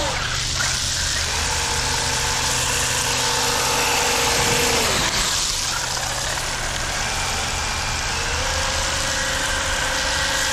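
Traxxas UDR RC truck's electric motor whining as it is driven, its pitch holding steady, dropping about five seconds in and rising again around eight seconds, over a steady hiss.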